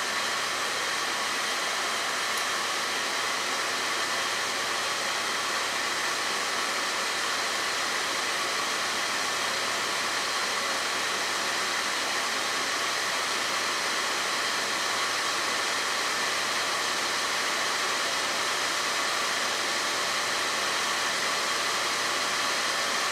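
Rework station cooling fan blowing air steadily onto the circuit board, cooling the freshly reflowed BGA chip after its solder balls have melted.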